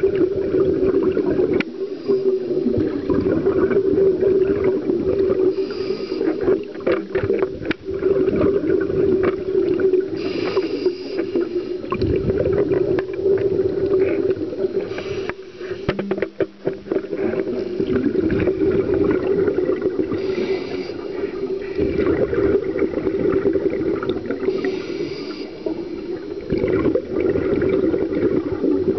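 Scuba diver breathing through a regulator underwater, heard through the camera's housing: a short hiss on each inhale about every five seconds, and bubbling, rumbling exhalations in between, over a steady hum.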